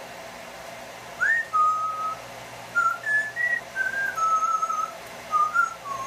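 Yellow-naped amazon parrot whistling a tune, starting about a second in: a quick upward slide, a held note, then a run of short clear notes stepping up and down in pitch. A hair dryer hums steadily underneath.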